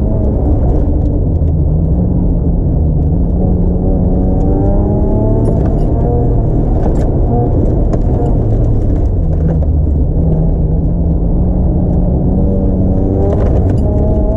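Turbocharged 2.5-litre KLDE V6 of a 1994 Ford Probe, heard from inside the cabin, running hard at around 4,000 rpm through an autocross course. Its pitch rises and falls repeatedly as the driver accelerates and lifts between corners.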